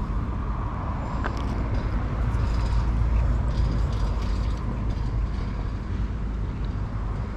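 A steady low mechanical rumble with a faint constant hum above it, like an engine or generator running without change.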